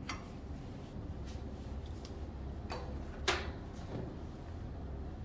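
A few short, sharp clicks and taps, the loudest about three seconds in, over a low steady hum.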